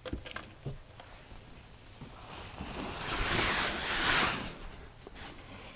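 Jacket fabric rubbing against the camera, a swelling rustling hiss for about two seconds in the middle, with a few light knocks before it.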